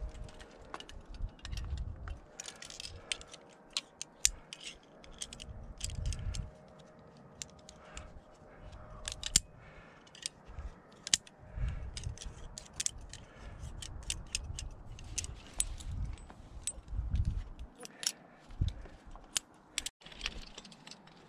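Metal climbing carabiners and quickdraws clinking against each other and the anchor bolts as the gear is handled, many sharp clicks scattered through, with intermittent low rumbles of handling on the microphone.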